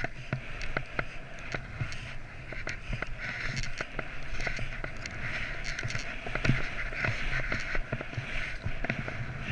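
Skis hissing through powder snow on a downhill run, a steady swishing with frequent small clicks and knocks and a low rumble underneath.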